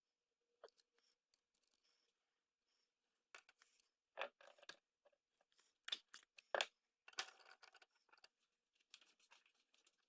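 Faint, scattered clicks, taps and rustles of the small scrap parts of a dismantled hair crimper being handled and set down.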